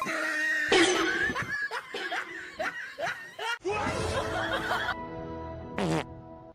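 Background music with someone laughing over it, including a run of short rising yelps in the middle. There is a brief wavering downward whistle near the end.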